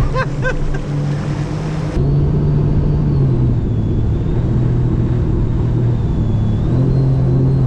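Sea-Doo RXT-X personal watercraft's engine running steadily at cruising speed over the rush of water, its pitch easing down and back up a little. The ski is fitted with an aftermarket exhaust that the rider finds a little too loud.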